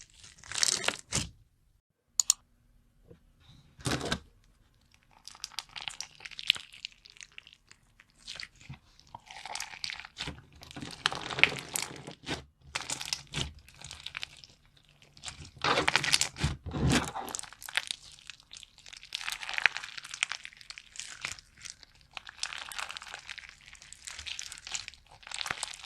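Slime being squeezed and pressed by hand, giving irregular crisp crackling bursts, with louder stretches around the middle.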